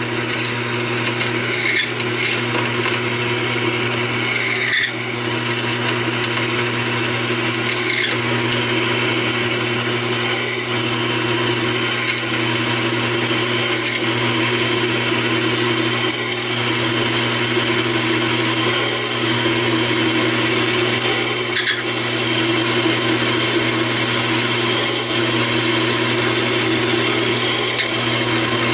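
Taig micro lathe running steadily while a twist drill in the tailstock chuck cuts into spinning 1018 steel rod: an even motor hum with the hiss of the drill cutting, and faint ticks every few seconds.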